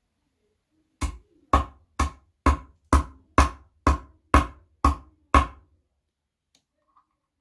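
Ten evenly spaced heavy knocks, about two a second, starting about a second in and stopping after about four and a half seconds.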